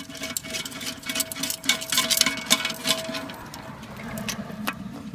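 Rapid, irregular clicking and rattling of plastic toilet-tank parts being unscrewed and worked loose by hand.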